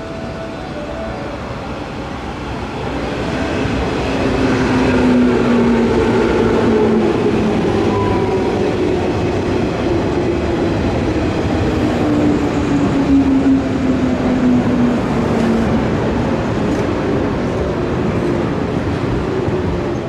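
A JR West 103 series electric train runs past on a curve, its DC traction motors and gears giving a whine that falls slowly in pitch over a loud rolling rumble. The sound builds a few seconds in and stays loud as the cars go by.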